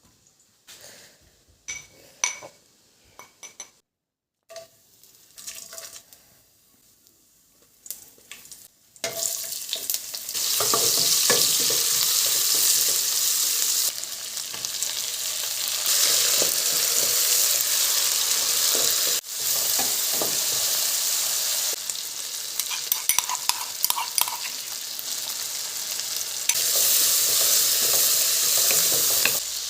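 A few light clinks and knocks of kitchen utensils, then from about nine seconds in, food sizzling loudly as it fries in a pan, with occasional scrapes of stirring. The sizzle jumps up and down in level several times at abrupt cuts.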